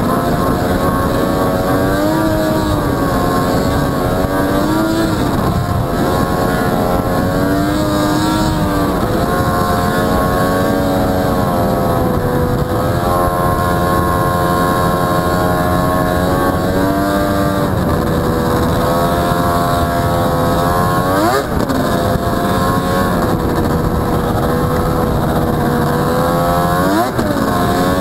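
1998 Arctic Cat Thundercat 1000's three-cylinder two-stroke engine running under way, its pitch rising and falling with the throttle. Twice, about three-quarters of the way through and again near the end, the revs drop sharply and climb straight back up.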